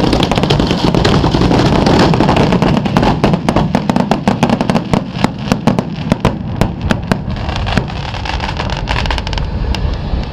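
Fireworks going off close by: a dense barrage of bangs and crackle that breaks up after about three seconds into rapid separate crackling pops, thinning and fading near the end.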